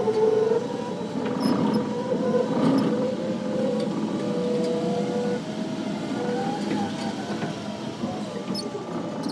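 Raymond ESD-DR25TT electric stand-up reach truck running, its electric motors whining over a steady mechanical noise, the whine's pitch shifting up and down as it is operated.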